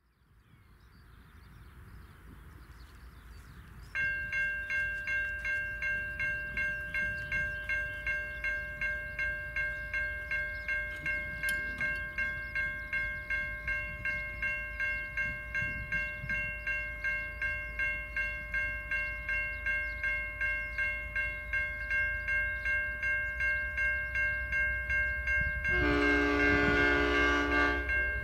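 Safetran Type 3 electronic level-crossing bells start ringing suddenly about four seconds in, a steady electronic ding about twice a second, while the crossing lights flash and the boom gates lower. Near the end an approaching diesel locomotive, N class N467, sounds its horn once for about a second and a half over rising train rumble.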